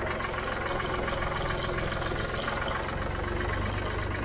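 1965 Ford 3000 tractor's three-cylinder diesel engine running steadily.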